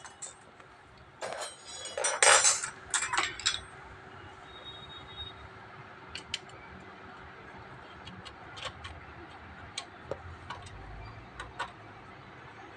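Metal hand tools clinking and clicking against bicycle parts while bolts at the rear of the frame are fitted: a burst of loud clanks in the first few seconds, then scattered light clicks.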